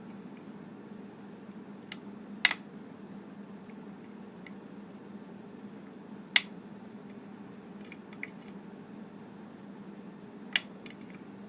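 A few sharp, separate metallic clicks of a hook pick working the pins of a Yale pin-tumbler challenge lock under tension, the loudest about two and a half and six seconds in, over a steady low hum.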